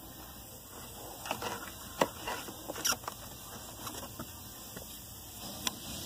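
New cabin air filter being handled and slid into its plastic housing in a 2014 Toyota Corolla: scratchy rubbing of the filter against plastic with a few sharp clicks and taps, the loudest about two seconds in.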